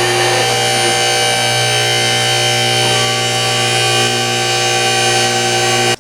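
Loud, steady electric motor buzz with a strong hum, cutting off abruptly near the end, typical of a car lift's hydraulic pump motor raising a car.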